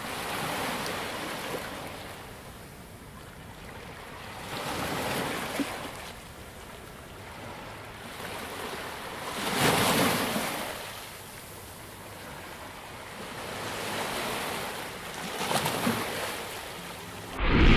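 Ocean surf: waves breaking and washing in, swelling and falling away every few seconds, the biggest about halfway through. Music starts abruptly near the end.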